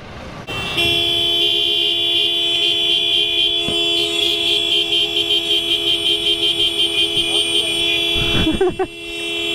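A vehicle horn held down, starting under a second in and sounding steadily for several seconds, pulsing about four times a second in the middle stretch.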